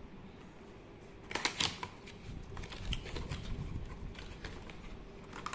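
Cardboard and plastic packaging being handled as a mouse box is opened and its inner tray slid out: scattered rustles and small clicks, busiest about a second and a half in and again near the end.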